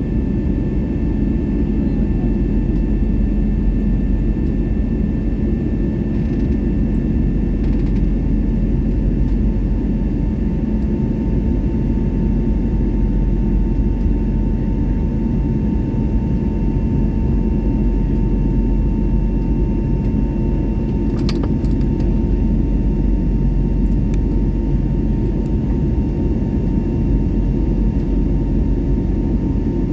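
Steady drone of an airplane in flight: a constant low rumble with a thin, steady whine above it.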